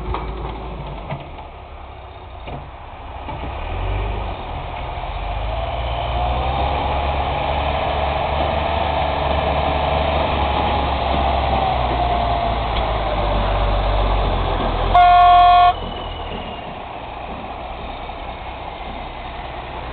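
John Deere backhoe's diesel engine running, louder from about four seconds in, with a whine that rises and falls. About three-quarters of the way through, a horn honks once, a short blast under a second long.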